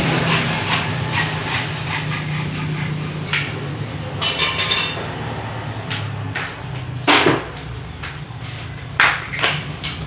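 A few sharp knocks over a steady low hum, with a brief high squeak about four seconds in.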